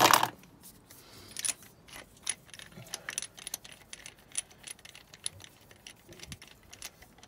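Irregular light metallic clicks and clinks of a spark plug socket and extension bar being worked on a spark plug in the 1972 Datsun Cedric's 2.4-litre straight-six, as the plugs are taken out.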